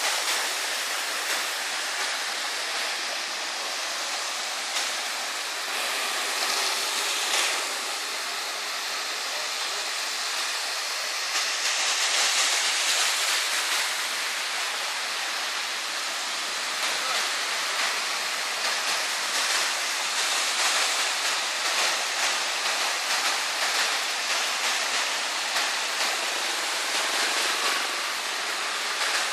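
Steady rushing water noise on a flooded street, swelling now and then with the splash of motorbikes and cars ploughing through the floodwater.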